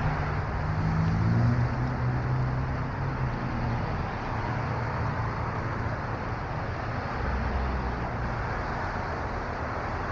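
Street traffic: a passing vehicle's engine running low and fading away over the first few seconds, then a steady traffic rumble.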